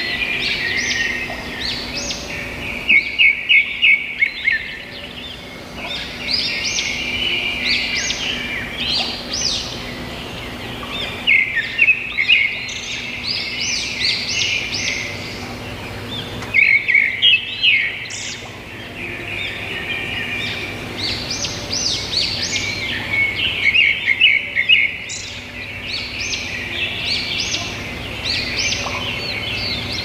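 A chorus of small songbirds chirping and twittering, many quick calls overlapping, with louder bursts of rapid chirps every several seconds.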